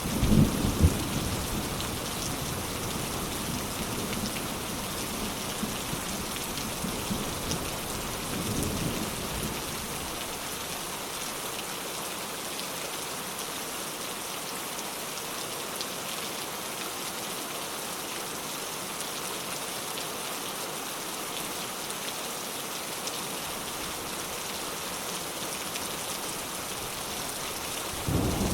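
Steady rain falling, with thunder rumbling in the distance: the loudest rumble comes right at the start, a softer one about nine seconds in, and another begins just at the end.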